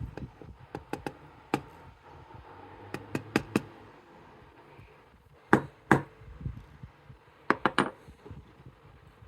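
Small metal parts from a disassembled Medeco M3 lock cylinder (pins, drivers and springs) being handled and set down on a hard surface: scattered light clicks and taps, several in quick clusters.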